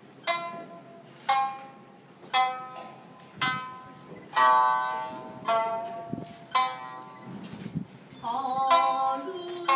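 Shamisen plucked in slow single notes, about one a second, each with a sharp attack that rings out and fades, then a quicker run of notes near the end.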